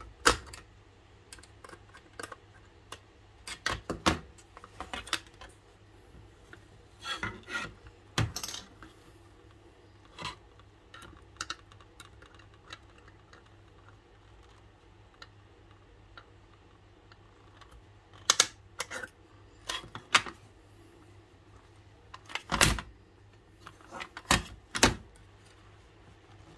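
Irregular small metallic clicks and clinks: pliers fitting circlips and a clip onto the steel rod in a plastic sewing machine top cover. The clicks come in scattered clusters, the loudest right at the start and a little past two-thirds through.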